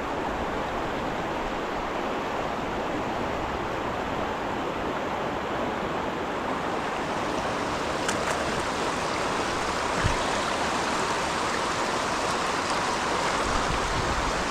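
River water rushing steadily over rocks, growing slightly louder near the end.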